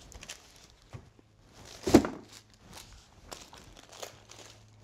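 A metal baking sheet being flipped over and set down onto sugared parchment paper on a towel: one loud thud about two seconds in, with light paper rustling and small knocks around it.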